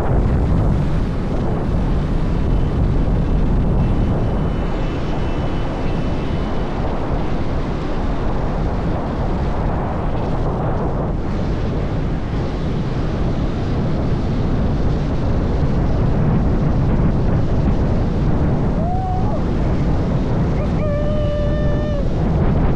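Wind buffeting the microphone with a steady road rumble, as when moving fast along a street on skates. Near the end a steady pitched tone sounds for about a second.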